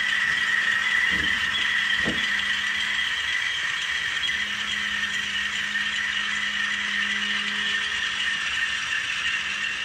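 A model diesel locomotive's sound decoder playing the engine startup sequence through its small speaker: a steady, rattly diesel running sound with a low hum that drops out briefly partway through, and two short pitch sweeps early on.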